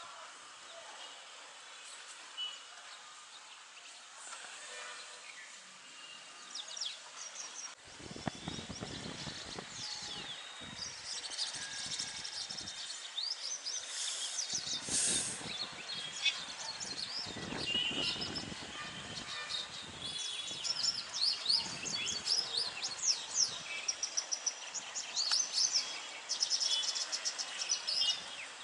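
Several birds chirping and calling, with many short high chirps and quick rising and falling whistles that get busier in the second half. About 8 seconds in, a low rumbling noise starts suddenly under the calls and comes and goes.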